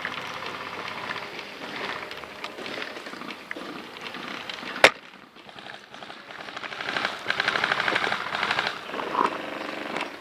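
Airsoft gunfire and rustling movement, with one sharp, loud crack a little under five seconds in and a stretch of rapid fine ticking later on.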